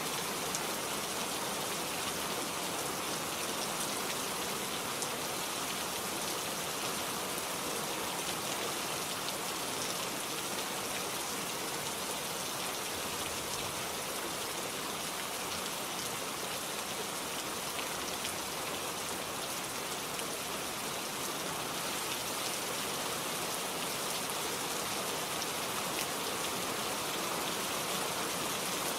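Steady rain falling on foliage and ground, an even hiss with scattered faint drop ticks.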